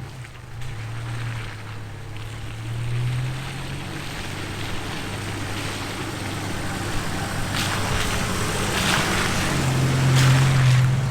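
Jeep engine running at low speed, crawling up a rocky trail, with louder rough rushes of noise from about two-thirds of the way in.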